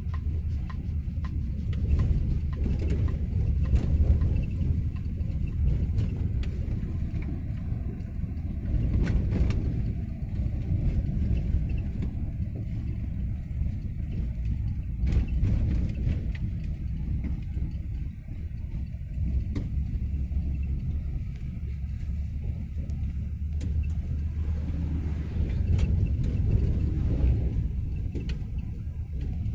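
Car driving along a road, heard from inside: a steady low rumble of engine and tyres that swells and eases a little, with a few light knocks.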